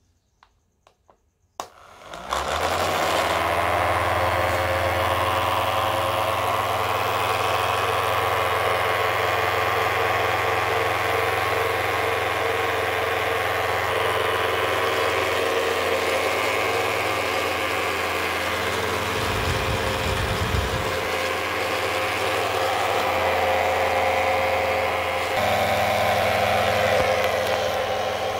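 Small battery-powered DC motors of a toy plane spinning plastic propellers: a click about a second and a half in, then the motors start up and run with a steady whirring hum.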